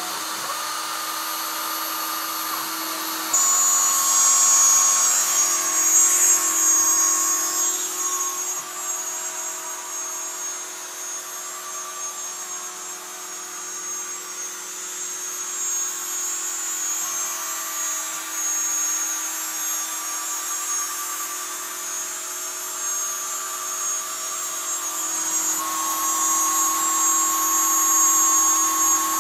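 Small CNC router spindle running with a steady high whine as its 2 mm three-flute cutter mills letters into wood. It gets louder about three seconds in, and its tone shifts a little at times.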